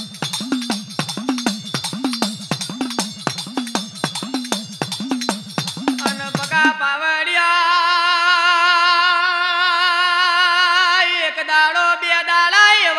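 Folk music: a steady beat of drum with jingling percussion. About halfway through, the percussion stops and a singer holds one long wavering note.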